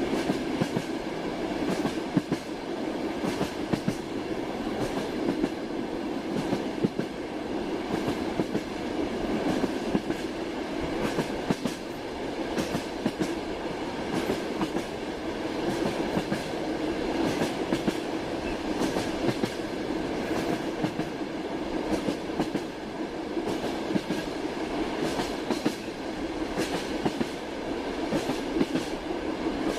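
Train running along the track: a steady rumble with the wheels clicking irregularly over the rails.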